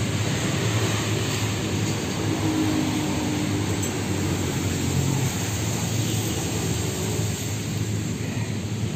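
Steady low outdoor rumble with no distinct events, the kind of continuous background noise that distant traffic makes.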